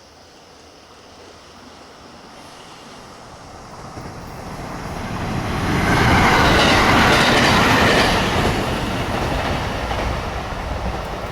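A train on the Hokuriku Main Line approaching and passing close by, its wheel and rail noise building to a peak about six to eight seconds in, then easing off.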